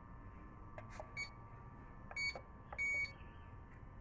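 Three short electronic beeps from the DEERC D50 drone's controls as it is switched on after pairing, the last one the longest, with small clicks before and between them. Under them runs a faint steady whine, fitting the one propeller that keeps spinning even with the drone switched off, a fault that makes the owner think the drone is defective.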